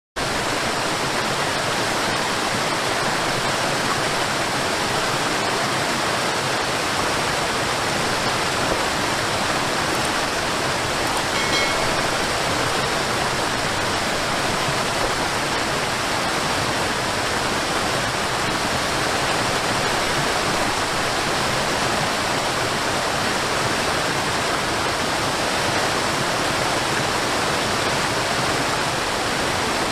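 Steady rush of flowing water, a stream or waterfall, as an even, unbroken wash of noise.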